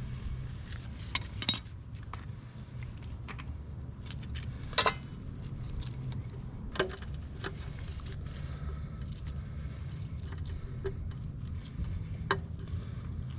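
Metal tools and parts clinking and tapping now and then, a few sharp clinks standing out, over a steady low hum.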